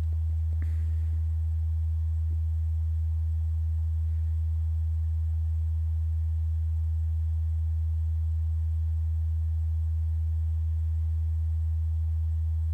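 Loud steady low electrical hum with a single unchanging pitch, the kind of mains hum picked up by the recording, with a few faint clicks about half a second and two seconds in.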